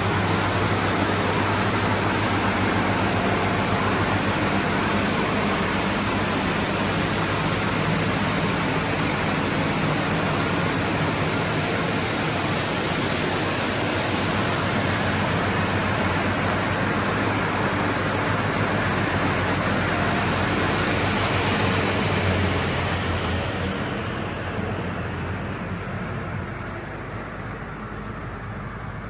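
SCM M2 220/120 crawler-feed multi-rip saw running steadily: a loud, even rush of noise over a steady low hum. Over the last several seconds the sound fades and loses its high end.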